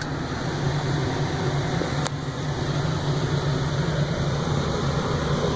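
Ford F-350's air-conditioning blower running hard, a steady rush of air that builds over the first second, over the truck's idling engine. One light click about two seconds in.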